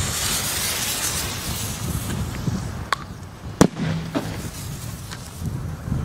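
Chiarappa Mini Thunder firecracker going off: a hissing preburner for about two seconds, then several sharp cracks, the loudest about three and a half seconds in.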